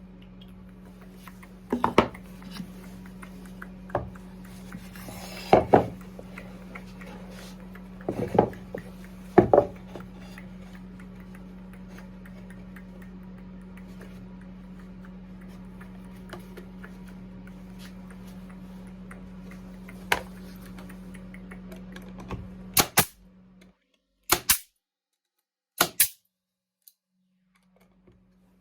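Wooden parts knocking and clattering as they are handled, over a steady low hum. The hum stops near the end, and three sharp double snaps follow about a second and a half apart.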